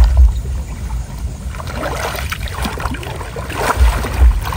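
Muddy floodwater sloshing and swishing around legs in rubber wader trousers as a person wades through deep water, with heavy low thumps near the start and near the end.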